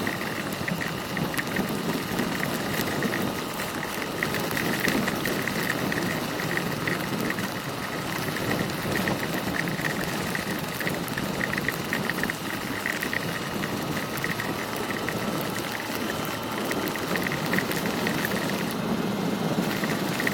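Motorcycle engine running steadily under a constant rush of heavy rain and wind on the camera, with many small ticks of raindrops hitting it.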